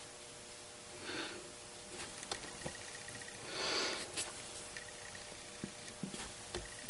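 Quiet room with two soft breaths, one about a second in and a slightly longer one around three and a half seconds in, and a few faint light clicks.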